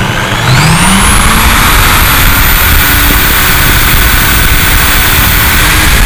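350-watt electric drill spinning up to full speed within the first second and then running steadily with a high motor whine, driving the magnet rotor inside a microwave-transformer coil generator under load. The pitch lifts slightly near the end.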